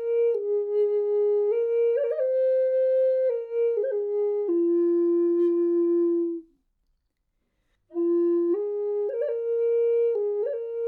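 Solo flute playing a slow, unaccompanied melody of long held notes moving in small steps, with quick grace-note flicks between some notes. The melody breaks off for about a second and a half just past the middle, then resumes.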